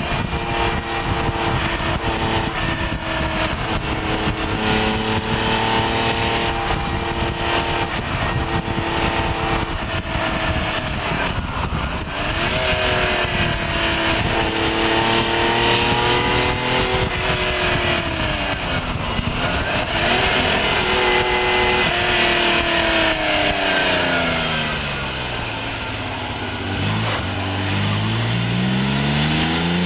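Lancia Stratos HF's Ferrari Dino 2.4-litre V6 driven hard, its revs repeatedly climbing under acceleration and falling away on lift-off and gear changes. There are three deep dips in pitch, and near the end it climbs steeply from low revs.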